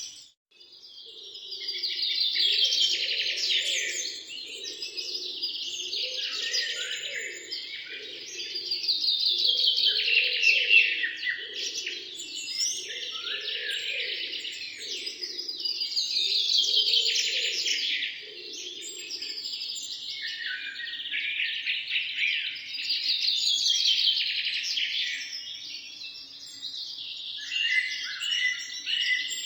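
Songbirds chirping and trilling together in overlapping phrases, the chorus swelling and easing every several seconds. It starts after a brief gap at the very beginning. A lower, pulsing sound runs underneath for roughly the first two-thirds.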